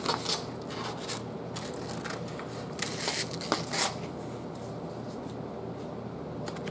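A sheet of sandpaper handled and cut with scissors: a few short, dry rasping rustles, the loudest about three and three and a half seconds in, over a faint steady low hum.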